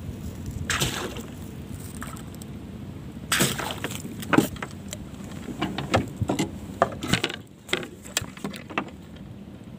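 Wooden deck boards and hatch covers of a small wooden fishing boat being shifted and handled: a run of knocks and clatters, densest from about three seconds in until near the end, over a steady low rumble.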